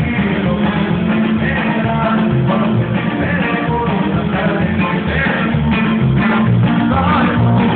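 Norteño band playing a corrido, with a steady bass line under plucked strings and melody.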